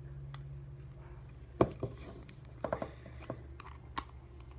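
Small screwdriver working the tiny screws out of a plastic cordless phone's back case: a few sharp clicks and light scrapes, the loudest about a second and a half in, over a low steady hum.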